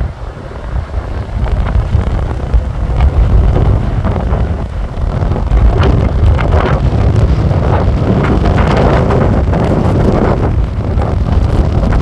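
Strong wind buffeting the phone's microphone over the noise of heavy surf breaking on the beach. The surf noise grows rougher and louder from about halfway through.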